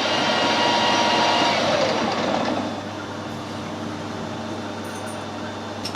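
Metal lathe running with a cut in progress on a steel stud, a steady whine with several tones; the cutting sound dies away about two to two and a half seconds in, leaving the lathe running more quietly. A short click near the end.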